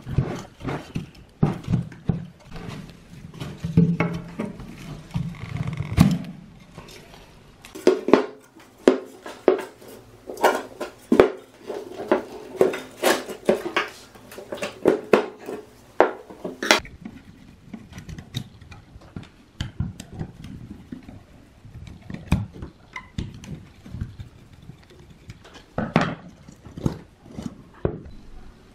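Sharp clicks, taps and knocks of metal and plastic speaker parts being handled as an old speaker is taken apart by hand, with a small blade scraping and prying around the speaker's magnet. The knocks come thickest through the middle of the stretch.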